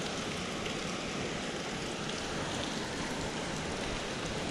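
Steady rushing of river water, an even hiss with no distinct splashes.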